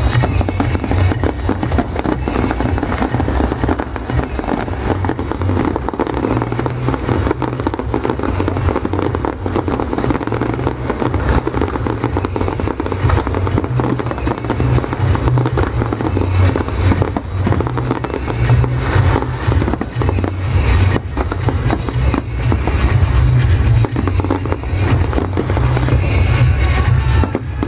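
Fireworks display bursting continuously: a steady run of booms and dense crackling, with music playing alongside.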